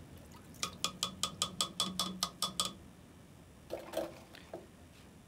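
Toilet brush worked rapidly against a porcelain marine toilet bowl: a quick run of about a dozen ringing clicks, about six a second. A few softer knocks follow as the brush is handled again.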